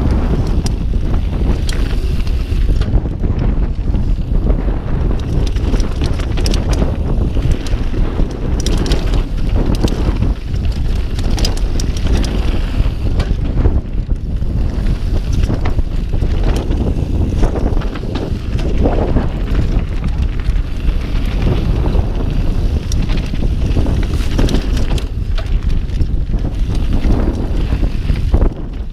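Mountain bike riding fast down a rough, stony dirt trail: constant wind buffeting the microphone over tyre rumble and crunch, with frequent sharp clicks and rattles from the bike over the rocks.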